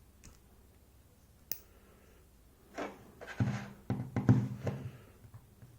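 A couple of small sharp clicks, then a brief cluster of knocks and scuffing from a pin-tumbler lock and picking tools being handled on a work surface.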